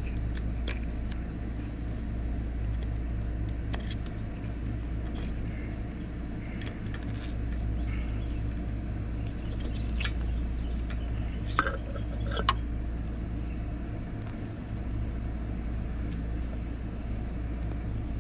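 Steady low background rumble with light clicks and rustles of small wires and a plastic connector being handled, and two sharper clicks about two-thirds of the way in.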